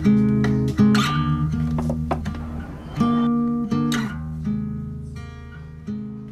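Background music: an acoustic guitar strumming chords, each new chord struck about once a second, getting gradually quieter toward the end.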